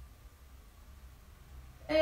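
Quiet room tone with a faint low hum. Near the end a woman's voice starts speaking.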